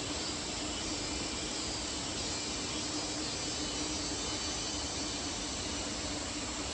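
Steady rush of flowing water from a mountain stream or waterfall, even throughout, with a faint low steady hum underneath.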